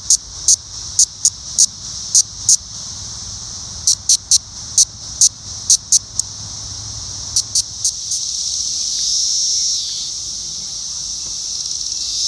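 Male 17-year periodical cicada (Magicicada cassini) held in the hand, giving its warning sound: short, sharp buzzy bursts, about two a second, over a steady high hiss. About eight seconds in, a male cassini's calling song takes over: a continuous high buzz that swells and then drops in pitch near ten seconds in.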